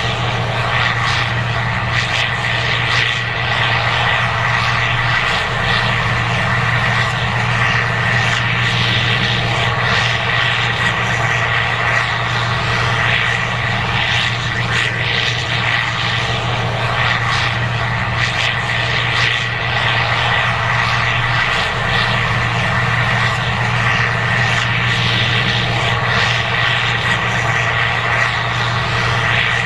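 Case IH 2188 Axial-Flow combine running steadily while harvesting corn: a loud, even machine drone with a steady high whine over it.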